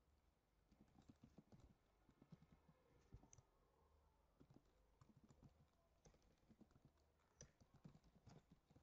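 Faint computer keyboard typing, irregular keystrokes in quick runs, against near silence.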